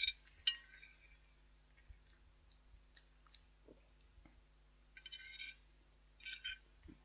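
Quiet eating sounds: a few light clicks and clinks of a fork against a plate, with two short scratchy bursts about five and six seconds in.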